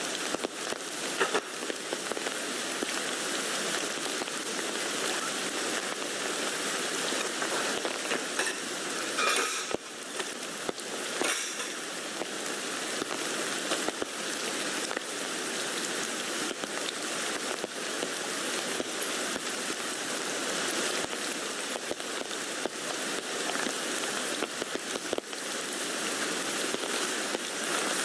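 Steady rain falling on a tent, a continuous hiss dotted with many small drop taps on the fabric, with a few louder drops about ten seconds in.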